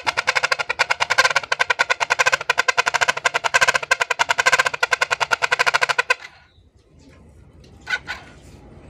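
Plastic toy trumpet horns fitted to a motorcycle's exhaust outlet, blown by the running engine's exhaust pulses: a loud, rapid, evenly pulsed horn-like buzzing that cuts off suddenly about six seconds in.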